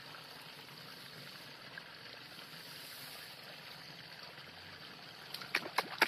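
Faint, steady hiss of outdoor background, then four or five sharp clicks in quick succession near the end.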